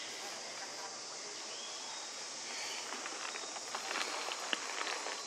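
Outdoor forest ambience: a steady high-pitched hiss, with scattered light clicks and rustles in the second half.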